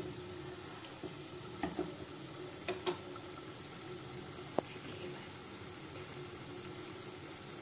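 Palm fruit fritters deep-frying in hot refined oil in a frying pan: a steady soft sizzle with a few faint pops. A continuous high-pitched trill runs under it.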